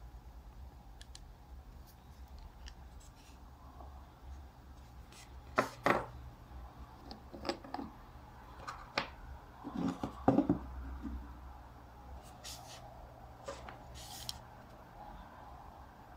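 Handling noise from taking apart a clear plastic fountain pen and uncapping a glass ink bottle: small clicks, taps and knocks of plastic and glass parts against each other and the table, with the loudest knocks about six and ten seconds in.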